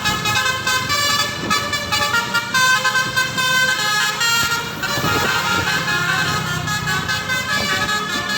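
Telolet bus horn: a bus's multi-tone musical horn playing rapid runs of notes, like a little tune, with a low engine hum beneath.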